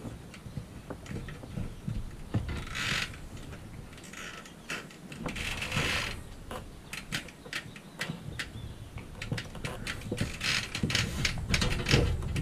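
Rope and metal bow fittings on a sailboat being handled: a run of small clicks and knocks, with brief rustles of line being pulled about 3 and 6 seconds in.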